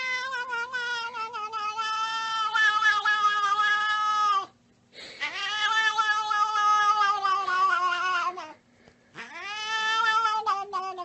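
Cat yowling: three long, drawn-out calls, each sagging slightly in pitch toward its end, with short pauses between them.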